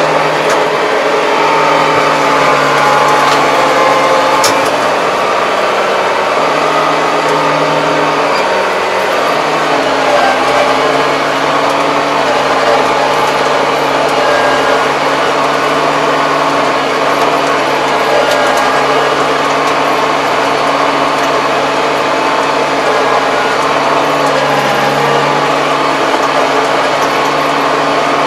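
Diesel engine of a Kubota 75 hp tractor running steadily, heard from inside the closed cab. Its note shifts slightly about nine seconds in.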